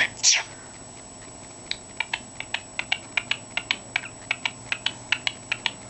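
Cockatiel giving a short falling squeak, then from about two seconds in a rapid run of sharp clicks, about four or five a second.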